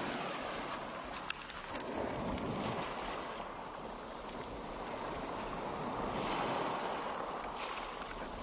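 Shallow waves washing in over a flat sandy beach: a steady rush that swells and eases, with some wind.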